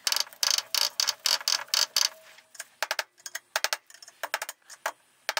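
Runs of quick, sharp metallic clicks from hand work on the stripped gearbox parts of a milling machine. They come thick and fast at first and grow sparser after about two and a half seconds.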